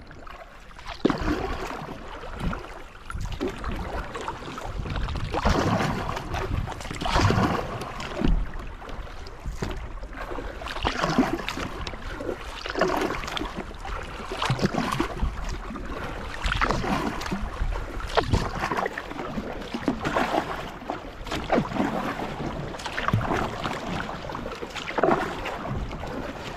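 Kayak paddle strokes dipping and pulling through lake water, a watery splash surge about every two seconds.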